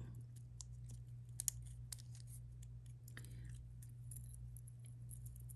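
Faint clicks and light taps from handling a small old perfume bottle and its screw-off cap with dipper, with two sharper clicks about a second and a half in.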